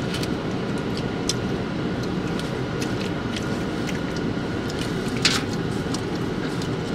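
Steady low hum of a car's engine and ventilation running inside the cabin, with scattered small clicks and smacks of eating and handling food, the loudest a short crackle about five seconds in.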